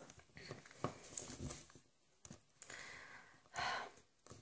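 Faint room tone with a few small clicks of handling, and one short breath near the end.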